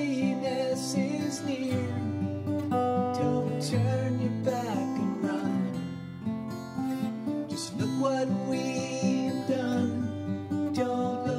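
Instrumental passage of an acoustic progressive rock song: acoustic guitar chords with a melody line that bends up and down in pitch over them.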